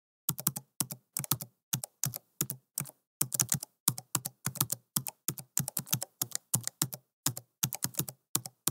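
Computer keyboard typing sound effect: quick, uneven keystroke clicks, about three or four a second with a few short pauses, as text is typed out letter by letter.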